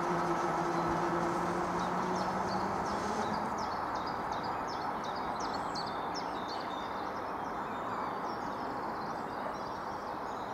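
A low hum fades out over the first three seconds. Then a small bird sings a rapid string of short high chirps over steady outdoor rustle.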